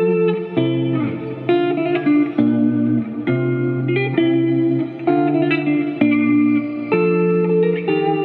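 Electric guitar played through a Line 6 POD HD Pro modeller, power amp and 2x12 speaker cabinet, picked up by the camera's own microphone: sustained chords that ring out and change about once a second.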